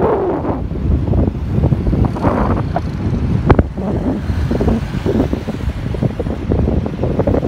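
Wind buffeting the microphone on a moving motorbike, with road and engine noise underneath. One sharp click about three and a half seconds in.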